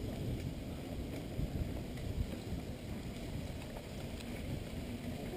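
Steady rumble of wind buffeting the microphone and tyres rolling over a sandy dirt track, picked up by a camera on a moving mountain bike.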